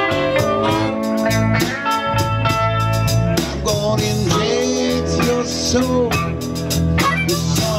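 Live blues band playing: an amplified harmonica played through a cupped microphone, with held and bending notes, over electric guitars and drums.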